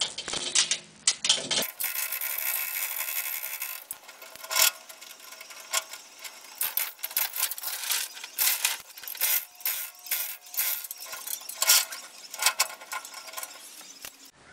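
Chain fall being worked to lower a heavy load: the hand chain rattles through the hoist with a dense run of irregular metallic clicks and clinks. The sound changes character about a second and a half in.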